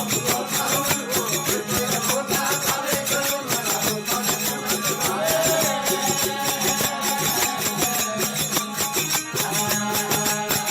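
Live Rajasthani devotional folk bhajan music: small jingling percussion keeps a fast, even beat over a steady drone and a gliding melody.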